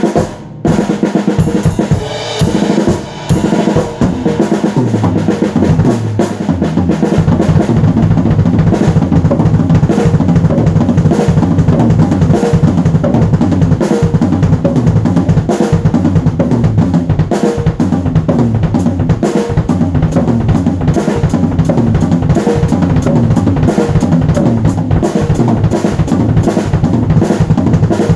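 A drum kit played in fast, dense strokes, stopping briefly a few times in the first few seconds, then hitting continuously with hardly a pause.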